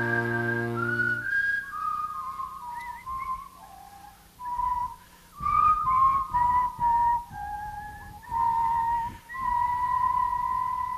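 A held brass chord from trumpet and trombone cuts off about a second in. A person then whistles a slow, wavering melody over soft band accompaniment, ending on a long held note.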